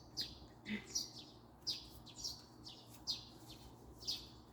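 A small songbird chirping repeatedly in a steady series of short, high chirps, roughly one or two a second, each dropping in pitch.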